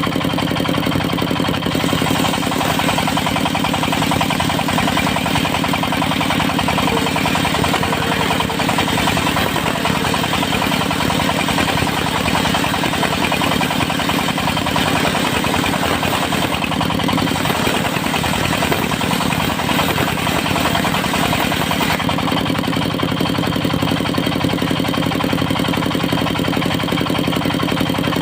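Engine of a portable circular-saw sawmill running steadily with a fast, even beat and a constant hum. The high hiss shifts about two seconds in and again near the end.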